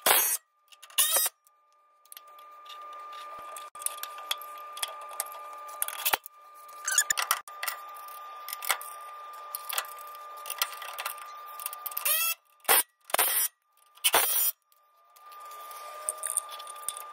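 A Milwaukee cordless impact tool fires in short bursts, spinning up and down as it runs nuts down on the front air bag mount. The bursts are broken by abrupt cuts, over a steady faint high hum.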